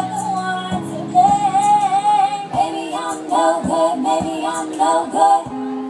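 A woman singing a pop song live with keyboard and a steady beat: she holds two long notes, then sings a quick run of short notes about halfway through.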